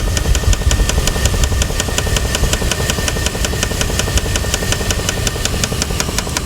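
1999 Jeep 4.7-litre V8 running at idle with a sharp, regular knock about seven times a second: an internal engine knock.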